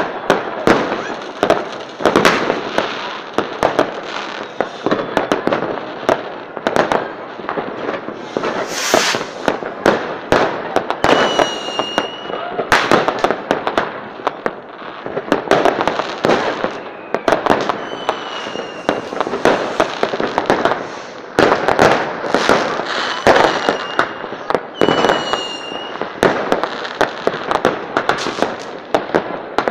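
Fireworks display: a dense, unbroken run of sharp bangs and crackling reports from aerial shells and firecrackers, with a brief hiss about nine seconds in and a few short high whistles later on.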